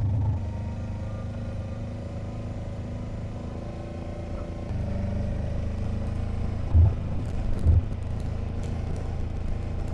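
Kawasaki Versys motorcycle engine running steadily at low speed, a little louder about five seconds in, with two dull thumps a second apart near the end.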